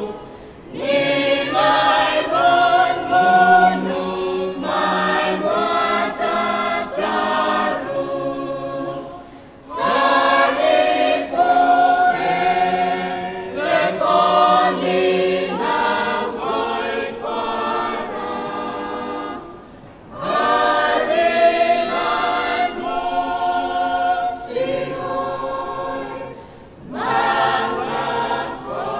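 Mixed choir of women and men singing a Roviana-language hymn unaccompanied, in long phrases with brief pauses for breath about every ten seconds.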